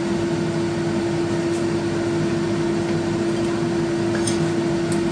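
Steady motor hum with a constant mid-pitched tone over an even background noise. A faint metal clink comes about four seconds in.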